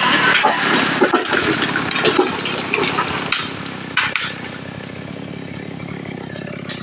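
Chainsaw engine running with clattering knocks for about four seconds, then settling to a steadier, quieter idle.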